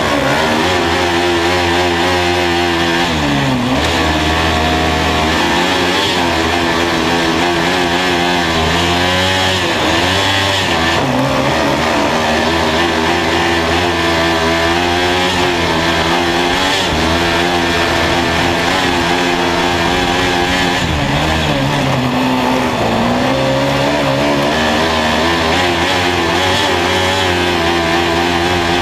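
Kart cross buggy's Honda 500 cc engine at full race pace, heard onboard from inside the cockpit. It revs up in long climbs and drops back sharply several times as the throttle is lifted and reopened through the corners.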